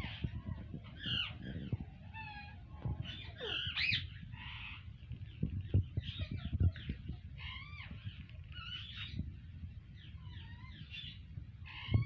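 Alexandrine parakeets chattering: short squeaky calls and warbles, some gliding up and down in pitch, every second or so, over low knocks and bumps.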